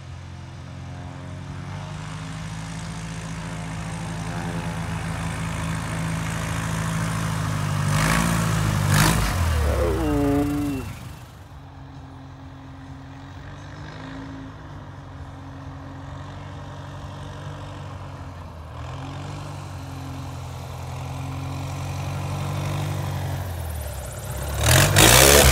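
Piston engine and propeller of a light single-engine bush plane on approach. The drone is loud at first, winds down about ten seconds in, then runs quieter and steadier. Near the end it swells loud and drops in pitch as the plane passes low overhead.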